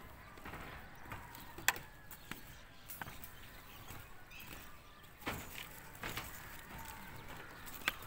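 Scattered sharp clicks and light knocks, the loudest about two seconds in, over faint outdoor background noise.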